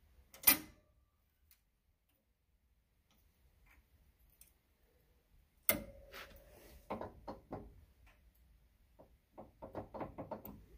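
Locking C-clamp pliers clamped on a stack of steel cutouts being worked by hand: a sharp metal snap about half a second in, a clack with a short ring near the middle, then a few spaced clicks and a quick run of light metal clicks near the end.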